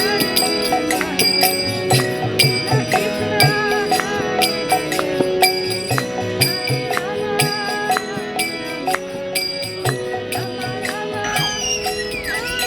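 Live street music: a hand drum beats a steady rhythm under jingling percussion and held, organ-like notes. Near the end the music changes and a low rumble comes in.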